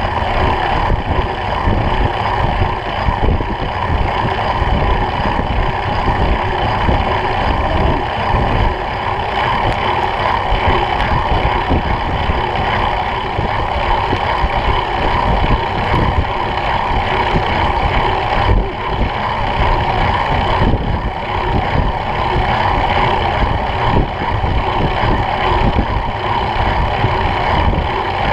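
Steady wind buffeting on the microphone of a camera mounted low on a moving bicycle, mixed with rolling road rumble from the tarmac.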